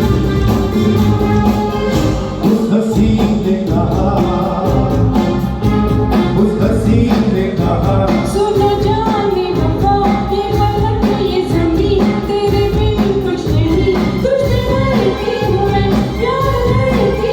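A Hindi film-style song with band accompaniment and a singing voice carrying a wavering melody line.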